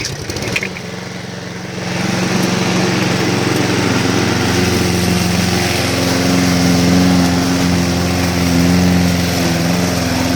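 Lawn mower running while cutting thick grass at its lowest height setting; about two seconds in it gets louder and then runs steadily.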